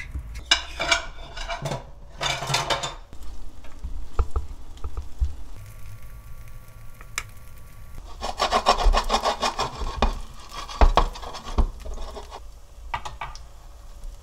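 Mung bean pancake batter frying in hot oil in a nonstick pan, crackling in bursts: briefly about half a second in and again around two seconds in, then a longer, stronger spell from about eight to eleven seconds.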